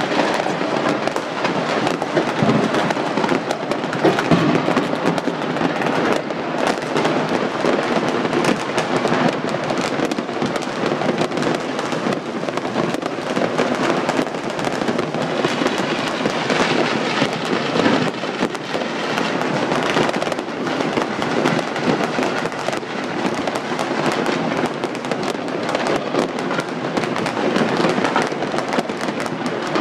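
Fireworks and firecrackers going off all across a city, a dense unbroken crackle of many overlapping bangs with no pause.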